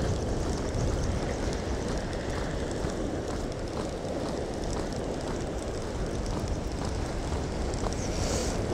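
Steady wind noise buffeting the microphone, with surf washing onto a shingle beach underneath.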